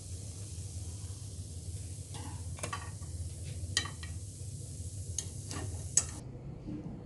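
A steel spoon and fork clink and scrape against a nonstick appe pan and a plate as the mini pizzas are lifted out: about six sharp clicks, the loudest about six seconds in. Under them runs a steady low hum and hiss, which cuts off just after the last click.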